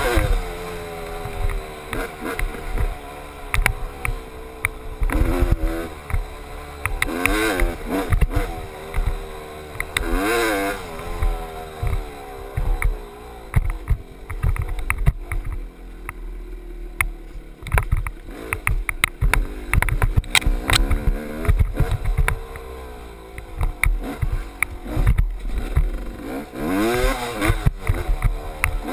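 GasGas dirt bike engine revving up and down over and over as it is ridden hard, with many short knocks mixed in.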